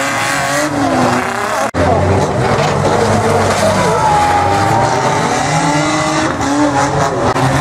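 Several banger racing cars' engines revving hard together, their pitches rising and falling over each other, with tyre and track noise. The sound breaks off sharply for an instant about two seconds in, then carries on.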